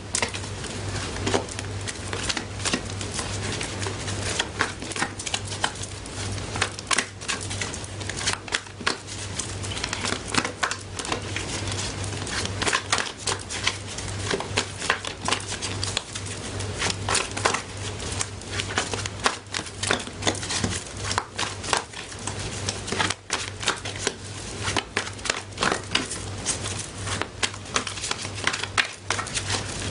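Tarot cards being shuffled by hand: a continuous run of quick papery clicks and slaps, over a steady low electrical hum.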